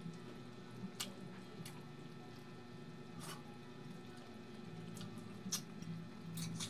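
Close-up wet eating sounds of a person chewing soft eel in coconut milk and eating by hand: squishy chewing with a handful of short sharp lip smacks and clicks. A steady low hum runs underneath.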